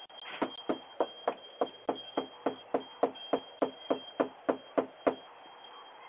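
Rapid, steady knocking on a front door, about seventeen knocks at roughly three a second, stopping about five seconds in.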